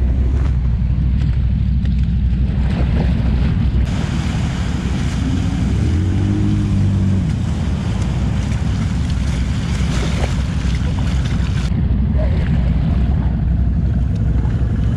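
Quad (ATV) engines running at low revs, a steady low rumble with a short rise in pitch about six seconds in. Wind noise on the microphone joins from about four seconds in.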